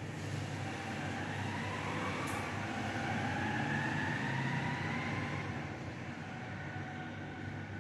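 A motor or engine humming steadily, its pitch rising slowly over about four seconds and then holding, getting louder towards the middle and then easing off a little.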